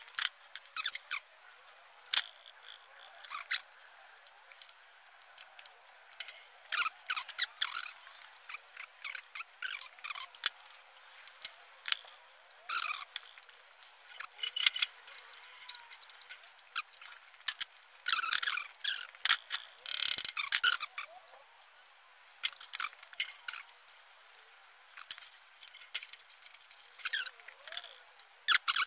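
Metal tools clicking, clinking and scraping on a French flathead V8's valve gear in short irregular clusters, as stuck valves are worked free.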